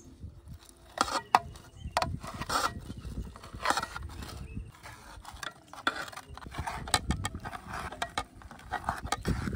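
Knife slicing raw boneless chicken breast on a metal plate: irregular sharp taps and short scrapes as the blade cuts through and strikes the plate.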